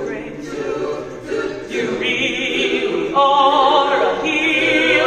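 A chamber choir singing, with held, wavering high notes standing out over the ensemble from about two seconds in.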